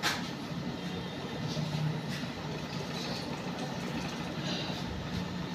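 Light metal clicks and clinks as a gear changer is fitted by hand into a motorcycle engine's crankcase: one sharp click at the start, then a few faint ones. A steady low hum runs underneath.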